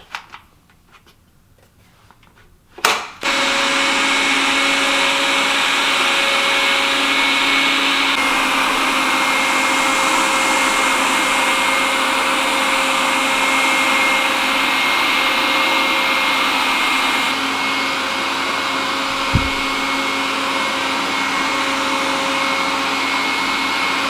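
Xiaomi Mijia STYJ02YM robot vacuum mop starting with a click about three seconds in, then running steadily: a loud suction-fan hiss with a high steady whine over it. A short low thump near the end.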